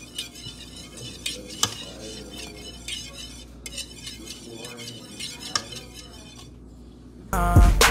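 A wire whisk beating eggs in a mixing bowl, scraping round the bowl with scattered sharp clinks of metal against its side. Near the end a much louder R&B song with a beat comes in.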